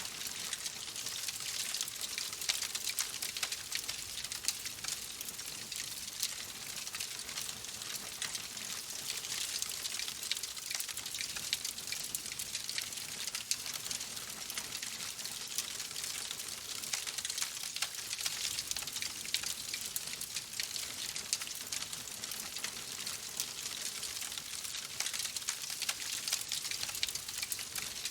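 Fireplace wood fire crackling: a steady hiss dotted with many small, rapid pops and snaps.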